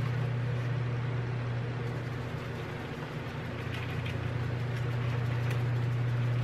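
A steady low hum, with faint light ticks and rattles about three and a half to five and a half seconds in as grated Parmesan is shaken from a plastic shaker jar into a foil pan.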